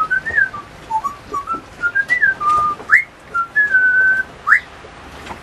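African grey parrot whistling a tune of short, clear notes, with two quick rising whistles and one longer held note near the end.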